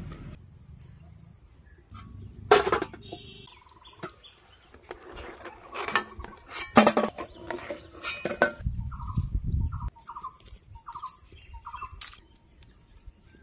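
A metal spoon clinks against a steel pan as boiled eggs are lifted out of the water and knock into a steel bowl. There are a few sharp knocks, the loudest about two and a half seconds in. Later a bird calls in a quick run of short falling notes.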